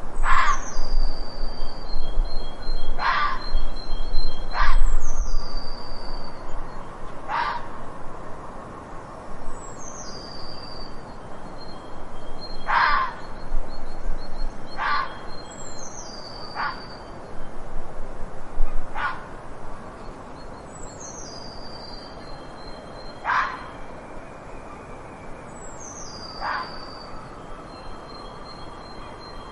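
A fox giving short, sharp barks at irregular intervals, about ten in all, growing fainter near the end. A small bird's high, falling call repeats every two to three seconds behind the barks.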